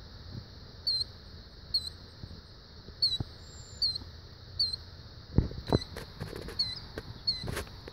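Killdeer calling: short, high, thin peeps repeated about once a second. Several low thumps in the second half, the loudest near the end.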